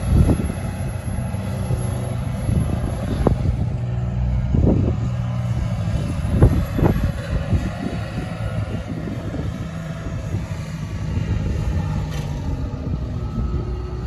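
Large wheel loader's diesel engine running under load while it works a grass silage pile, with a few short clunks in the first half.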